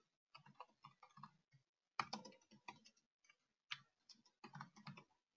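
Faint computer keyboard keystrokes: a run of light, irregular key clicks, with a couple of sharper presses about two seconds in and near four seconds.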